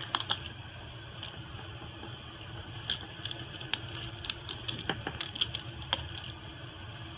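Small tools clicking and tapping on an iPhone SE as it is taken apart: a dozen or so light, sharp clicks at uneven intervals over a steady low hum.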